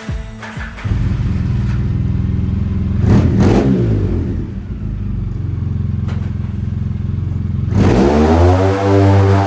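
A 2003 Polaris Sportsman 700 ATV's twin-cylinder engine, fitted with a Big Gun aftermarket exhaust, idling steadily from about a second in. It is blipped once about three seconds in, then revved up harder and held high near the end.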